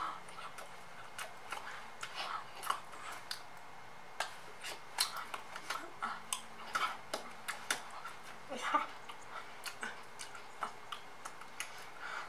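A woman whispering, her speech breathy and unvoiced, broken by frequent lip and tongue clicks.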